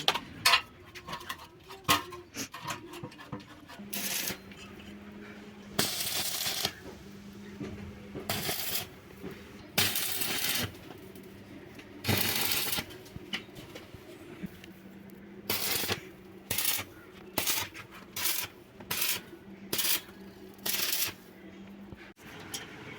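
Arc welding in a series of short tack welds: about twenty crackling, hissing bursts, each under a second long, with the welding machine humming steadily between them.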